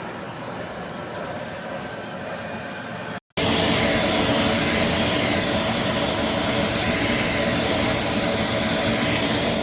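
A vacuum cleaner's motor running with a steady whooshing hum; the sound cuts out for an instant about three seconds in and comes back louder.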